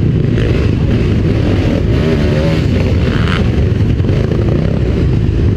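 Several dirt bike engines running and revving together, a loud, dense low rumble with short rises in pitch near the middle.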